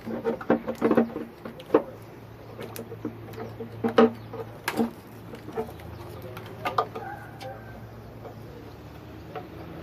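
Irregular metallic clinks and knocks of hand tools and engine parts while the valve cover is taken off a Nissan D21 engine, busiest in the first two seconds, with single sharper knocks about four and five seconds in, over a steady low hum.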